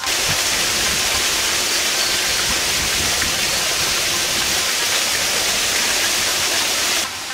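Water splashing steadily down a rocky garden waterfall, a constant rushing that starts suddenly and cuts off suddenly near the end.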